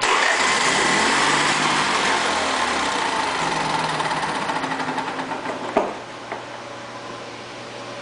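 Honda EV6010 generator's engine starting and running briefly. Its running turns uneven and pulsing after about five seconds, and it stops with a sharp knock before six seconds, part of a fault where the generator will not keep running.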